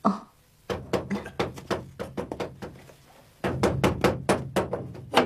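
Rapid, insistent knocking on a wooden door, about four knocks a second, in two bouts with a short pause between.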